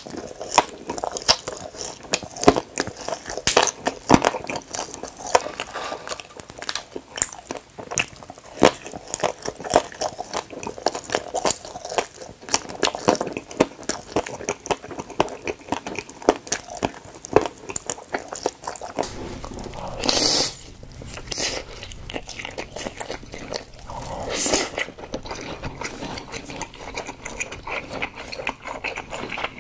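Close-miked eating sounds: a person biting into and chewing blue space jelly balls, with many sharp crunchy bite clicks and wet chewing. Partway through, the background changes and the chewing goes on, broken by two longer, louder noises.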